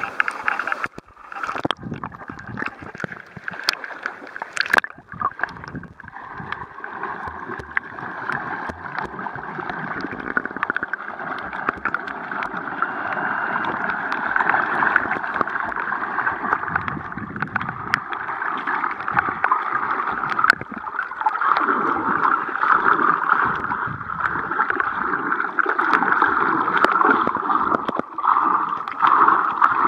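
Muffled water sloshing and gurgling picked up by a camera held at and then below the sea surface, with scattered clicks and knocks. It grows louder in the second half.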